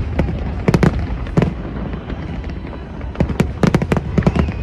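Fireworks going off: many sharp, rapid bangs, a cluster about a second in and a denser run through the last second and a half, over a steady low rumble.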